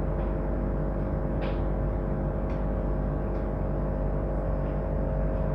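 A steady low drone with two held tones over a deep hum, unchanging throughout, with a few faint ticks.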